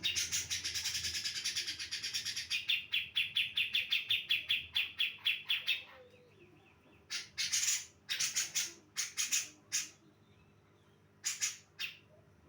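Female cucak jenggot (grey-cheeked bulbul) calling: a fast, even string of repeated notes, about five a second, for roughly six seconds, then after a short pause a few shorter bursts and two last notes near the end.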